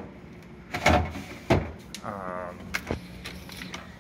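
Knocks and clatter of jars and plastic containers being moved about inside a refrigerator, with a short squeak about two seconds in.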